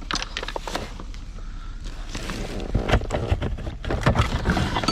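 Repeated knocks and clatter of scrap being handled and pulled from a junk pile, including a chunk of aluminum, over a low steady rumble. The knocks are loudest about three to four seconds in.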